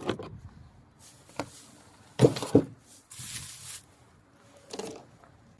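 Scattered clicks and knocks of hands working on a small portable gasoline generator's casing, with a short scraping rustle in the middle.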